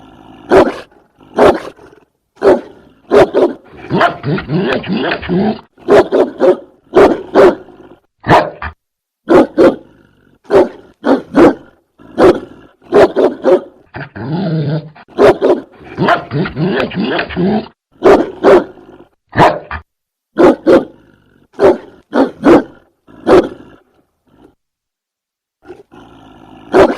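German Shepherd barking in loud single barks, again and again, broken by two longer stretches of growling, about four seconds in and again about fourteen seconds in, with a quieter pause near the end.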